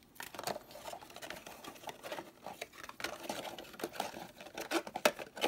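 Cardboard packaging being handled: a black card frame insert and box tray rubbed, tapped and slid together, giving many small irregular scrapes and clicks, with a sharper click near the end.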